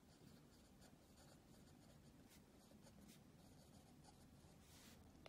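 Faint scratching of a pen writing on lined notebook paper, in short irregular strokes.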